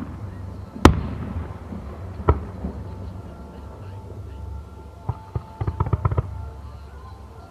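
Aerial fireworks shells bursting about 500 m away: a sharp bang about a second in, another a little after two seconds, then a quick cluster of crackling pops around five to six seconds in, over a steady low rumble.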